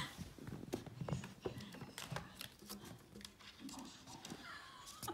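Faint scattered taps and rustles of a teacup yorkie puppy and another small dog playing.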